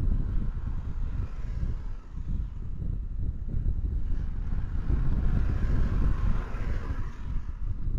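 Unsteady low rumble with a light hiss from an outdoor microphone, played back sped up threefold, with no distinct events standing out.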